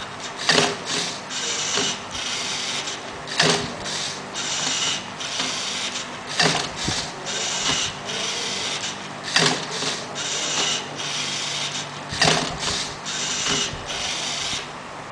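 LEGO Mindstorms NXT motors and plastic gearing of a Rubik's cube solver robot whirring as it turns and flips the cube, with a sharp plastic clack starting each move, about every three seconds.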